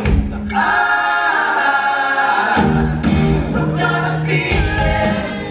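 A live pop-rock band with several singers performing on stage. The voices hold a sung harmony over a thin backing, then the full band with bass and drums comes back in about two and a half seconds in.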